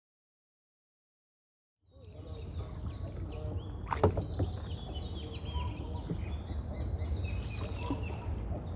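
About two seconds of dead silence, then outdoor ambience: many birds chirping over a low steady rumble, with one short knock about four seconds in.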